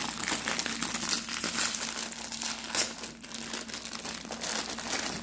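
Crinkling, rustling plastic wrapper, with many quick irregular crackles, as a roll of María cookies is unwrapped.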